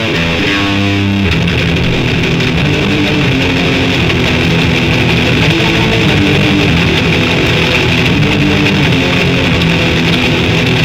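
Grindcore/death metal recording: heavily distorted electric guitar playing a riff of held notes that change about every half second to second, with bass underneath.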